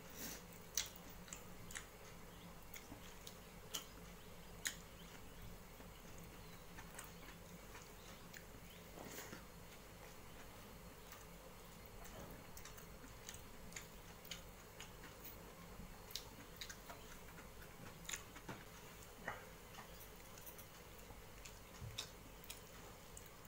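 Faint eating sounds of a man eating rice and fish curry by hand from a metal plate: scattered sharp clicks and soft smacks of chewing and of fingers mixing rice on the plate, the loudest few near the start and about five seconds in.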